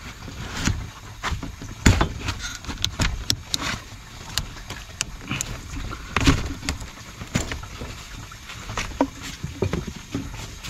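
Irregular clicks, knocks and rustles of hands handling white plastic Speedfit push-fit pipe and elbow fittings, pushing and fitting them onto a copper pipe.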